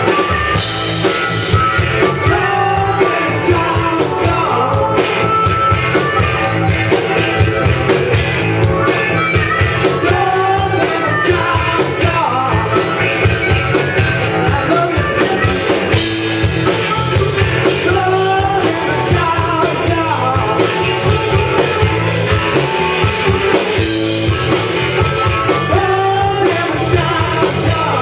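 Live rock band playing loud and steady: electric guitars and a drum kit, with a male singer and harmonica over the top.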